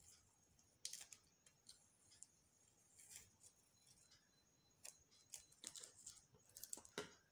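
Faint, scattered snips and rustles of scissors and paper being handled, coming more often in the second half.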